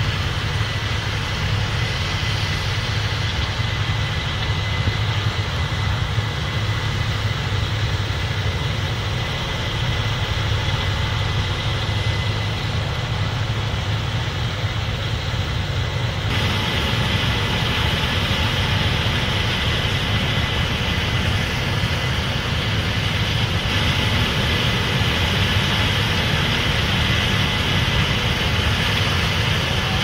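Case IH 8250 combine running as it harvests corn: a steady, heavy engine drone with the noise of its working machinery. About halfway through the sound turns brighter and a little louder.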